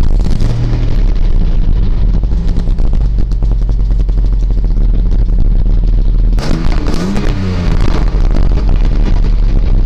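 Opel Omega B engine idling with a newly fitted mass air flow sensor. About six and a half seconds in it is revved once, the pitch rising and then falling back to idle.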